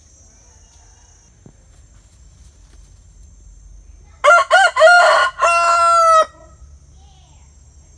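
Rooster crowing once, about four seconds in: a few short notes followed by a long held final note.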